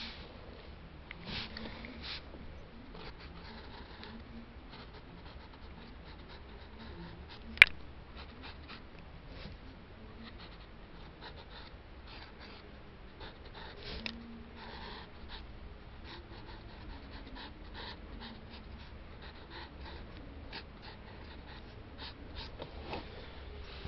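Pencil scratching on paper in many short, light strokes as a drawing is sketched and shaded. A single sharp click about a third of the way in stands out above the strokes.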